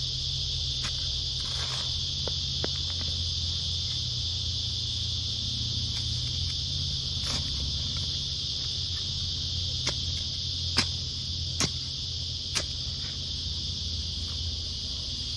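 A steady, high insect chorus runs throughout. A few sharp knocks come about two-thirds of the way in.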